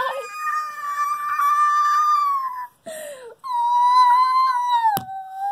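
A child's long, high-pitched wail held on one note, then a quick breath and a second long wail that slides lower near the end: a playful mock death cry. A sharp click about five seconds in.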